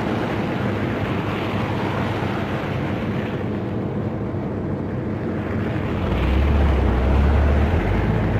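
A car driving: steady road and engine noise, with a deep low rumble that grows louder about six seconds in.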